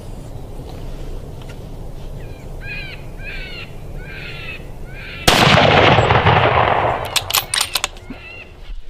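A single loud rifle shot about five seconds in, trailing off over a second and a half of rolling echo, followed by a few quick sharp clicks. Before the shot, four short calls repeat about 0.7 s apart over a steady low rumble of background noise.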